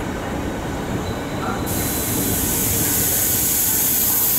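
Southeastern Class 395 electric multiple unit running into the platform and past at close range, a steady rumble of wheels and running gear. A steady high hiss comes in suddenly a little under two seconds in.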